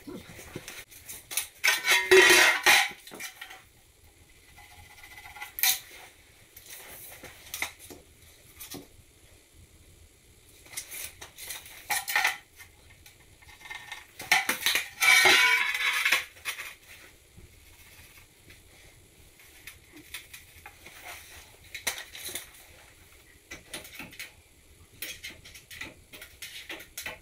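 Hard floor tiles clinking and scraping against each other as they are handled and set down on the floor. There are two louder clusters of clatter, about two seconds in and about fifteen seconds in, with scattered lighter clicks between.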